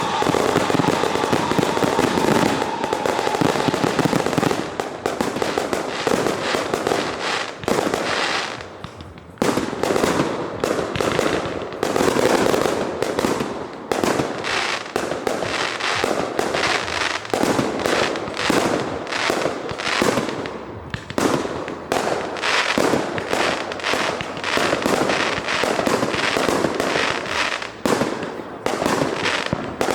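Fireworks going off in a dense, nearly continuous barrage of bangs and crackles, with a short lull about nine seconds in.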